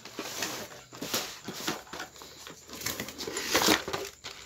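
Cardboard boxes being slid and moved about on a table by hand: a run of scrapes, taps and rustles, loudest a little before the end.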